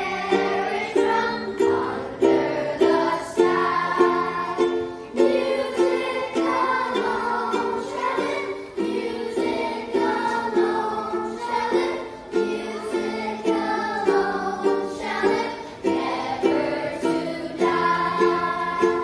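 A group of children singing a song together, with steady rhythmic strummed chords on a string instrument accompanying them.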